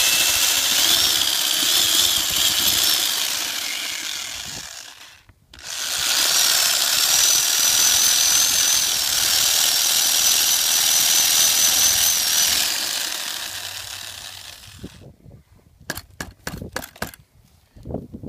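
Electric drill spinning a paint-mixer paddle through a bucket of soapy water, with a wavering motor whine over a churning noise. It winds down and stops about five seconds in, starts again a moment later, then winds down again and stops near fifteen seconds, followed by a few light knocks and clicks.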